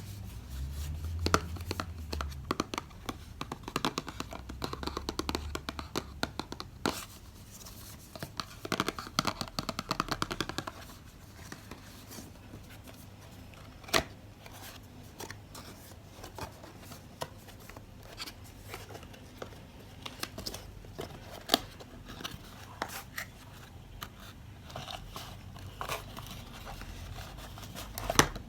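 Close handling noises: rustling and crinkling, with many light clicks and knocks scattered through and a few sharper knocks.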